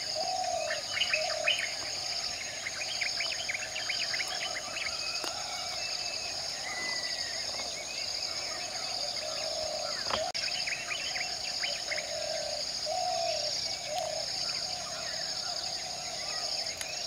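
Outdoor dusk ambience: birds chirping and calling, in clusters of quick chirps, over a steady, pulsing high-pitched drone.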